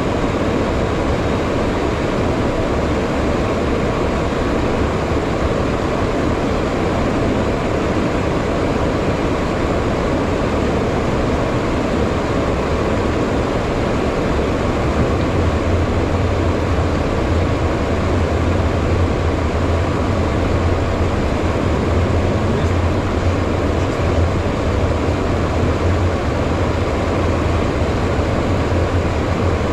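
Steady in-flight cockpit noise of a HondaJet: air rushing over the airframe together with the drone of its two GE Honda HF120 turbofans. A low hum grows louder about halfway through.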